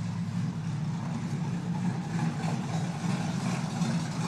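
Dirt modified race car's engine idling with a steady low drone.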